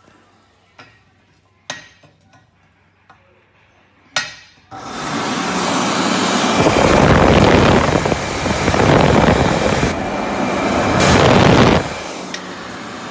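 A few sharp clicks, then a white wall-mounted electric hand dryer switches on about five seconds in with a sudden loud rush of blown air. The rush runs steadily for about seven seconds, then drops to a quieter steady rush near the end.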